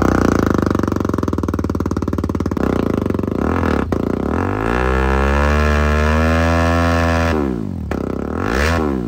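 BMW G 310 GS single-cylinder engine with an aftermarket exhaust being revved. It idles, rises in pitch and holds a high rev for about two seconds, drops back, then is blipped quickly a few times near the end.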